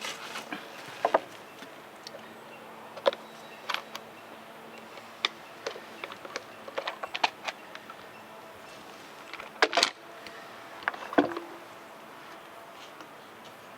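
Irregular clicks, knocks and light clatter of tools and chainsaw parts being handled on a workbench, about a dozen sharp knocks spread through, the loudest close together around ten to eleven seconds in.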